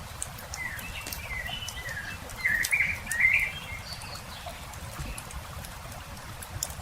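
Campfire crackling with scattered sharp pops, while a songbird sings a wavering, chattering phrase from about half a second in to about three and a half seconds, loudest around the middle.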